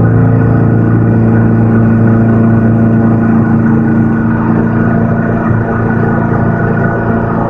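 CNC milling machine running a 1/2-inch end mill through carbon steel, a loud steady hum with a low, even tone.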